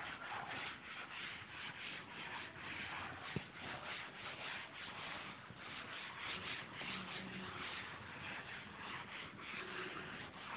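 Chalkboard eraser rubbing across a chalkboard in quick repeated back-and-forth strokes, a soft scratchy wiping sound. A single sharp click about three and a half seconds in.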